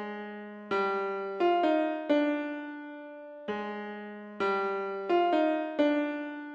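Background music: keyboard chords in a slow repeating pattern, each struck and left to ring down, with no drums.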